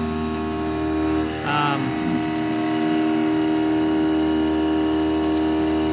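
CNC mill running steadily with a multi-tone whine as a 3/16 in five-flute corner-radius end mill slots full width through 8670 carbon alloy steel at about 4,960 rpm, 20 inches a minute and 60 thou depth of cut.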